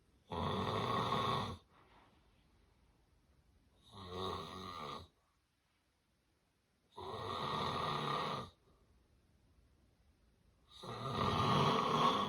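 Loud snoring from a sleeper: four long snores, each well over a second, coming about every three and a half seconds with quiet breaths between. The uploader presents it as the snoring of severe sleep apnea.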